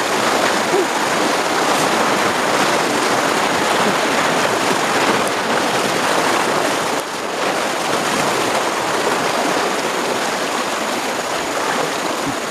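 Swollen, very swift small river rushing and churning close by: a loud, steady rush of water.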